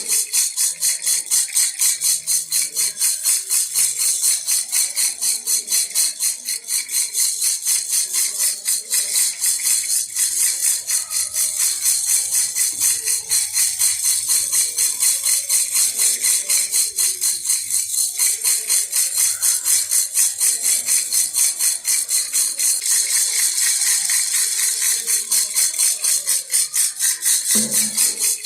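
Baby rattle (jhunjhuna) shaken in a steady, even rhythm of about three shakes a second, with a high, jingling rattle.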